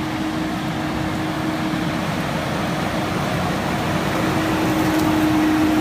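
Fendt 724 tractor's diesel engine running steadily under load while pulling a six-furrow plough, with a steady whine over the engine rumble. It grows a little louder toward the end.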